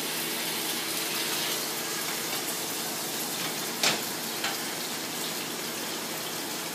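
Salmon fillet sizzling steadily as it sears in very hot oil in a frying pan. A sharp knock comes about four seconds in, with a lighter one half a second later.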